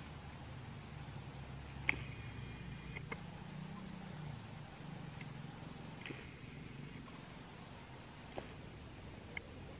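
Insect calling in short high-pitched trills, each about half a second long, repeating about once a second, with a few faint sharp clicks, the loudest about two seconds in.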